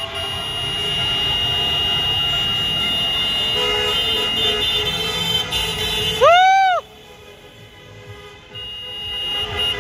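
Car horns honking in celebration, held as long steady blares over passing traffic. About six seconds in, a short, loud tone rises and falls in pitch. Then the honking drops away and comes back near the end.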